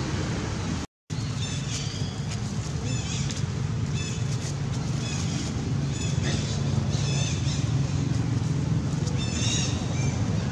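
Short, high-pitched chirps repeating over a steady low rumble, with a brief cut-out of all sound about a second in.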